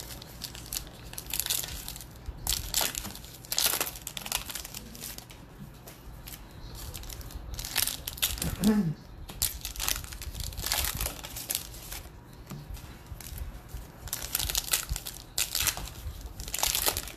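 Foil wrapper of a Bowman baseball card pack being torn open and crinkled by hand, in irregular bursts.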